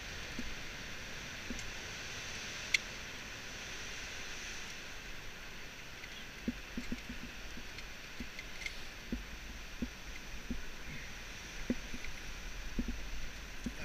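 Steady outdoor hiss with wind rumbling on the microphone, broken by a few light clicks and clinks of climbing hardware (carabiners and a rope device) being handled on a harness.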